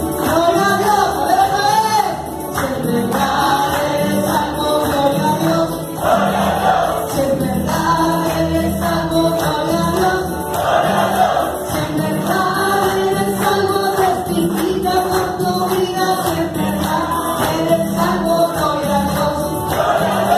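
Live Catholic praise song played loud through a PA: a woman sings into a microphone and a group sings along over amplified backing with a steady, lively beat.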